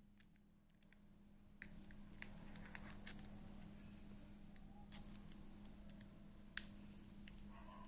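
Faint scattered clicks and scratches of a tool working a tiny screw out of the back of a smartwatch, with two sharper clicks about five and six and a half seconds in.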